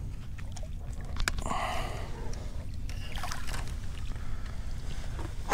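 Water splashing and sloshing beside a small skiff as a hooked redfish is scooped into a landing net, with a few sharp knocks of gear.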